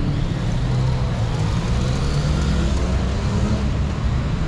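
City road traffic: motor vehicle engines running with a low hum, one pulling away with its pitch rising and falling through the middle.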